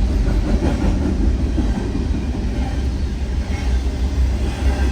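A long freight train's cars rolling past, a steady low rumble with faint wheel clatter.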